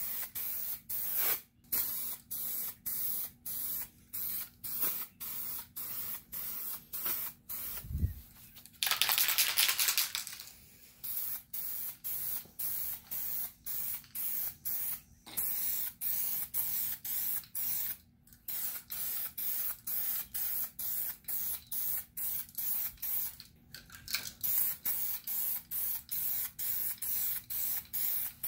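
Aerosol spray can of SprayMax 2K epoxy primer hissing in short repeated bursts, about two a second, with one longer spray of about two seconds near the middle and a dull thump just before it.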